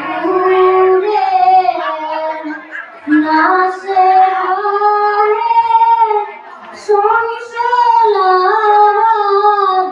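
A boy singing an Assamese diha naam devotional song into a microphone, in long gliding melodic phrases with short breaks for breath, about three seconds in and again a little past six seconds.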